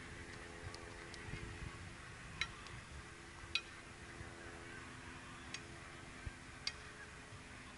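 Faint outdoor ambience: an uneven low rumble, a steady low hum that fades out about three seconds in, and half a dozen short, sharp high ticks scattered throughout.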